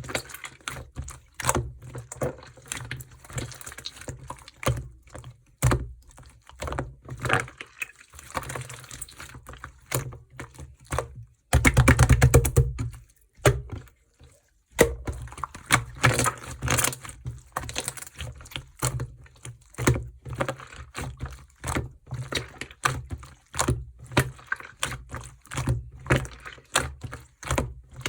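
Clear, chewy slime being squeezed, stretched and folded by hand, giving sticky clicks and crackles as small air pockets pop. About twelve seconds in there is a louder stretch of rapid squelching for a second or two.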